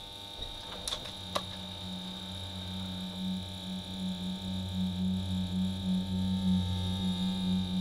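A low, steady humming drone with a thin high whine above it, pulsing and slowly growing louder. Two faint clicks come about a second in.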